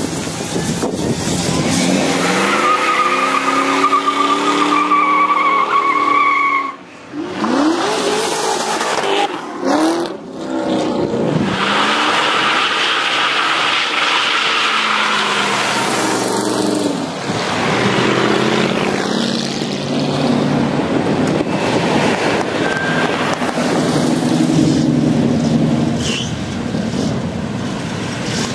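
Muscle cars doing burnouts one after another: engines revving hard, rising and falling in pitch, with tires squealing, including a long steady screech from about three to six seconds in. The sound breaks off briefly twice, near seven and ten seconds in.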